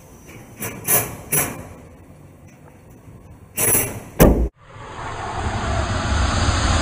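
A van cargo door fitted with a Lock Dog security pin: three light clicks, then the door swings and shuts with a loud slam about four seconds in. After a sudden cut, a swelling whoosh of noise follows.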